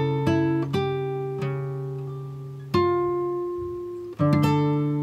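Background music: slow acoustic guitar, its plucked notes and chords left to ring and fade.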